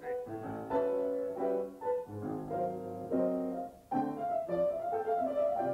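Piano playing a jazz tune in chords.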